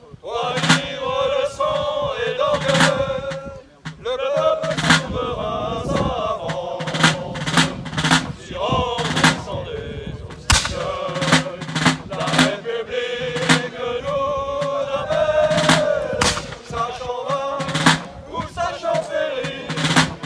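Military side drum beaten in a steady marching rhythm with sharp stick strokes, a tune carried over it.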